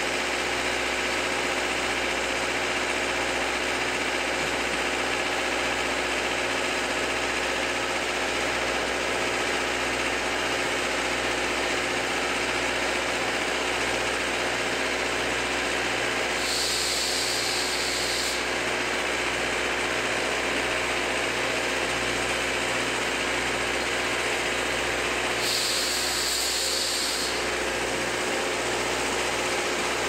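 A steady engine hum and running noise from the SL Ginga train moving off slowly, heard from a passenger car; the coaches carry their own diesel engines to help the steam locomotive. Two short hisses come about halfway through and again near the end.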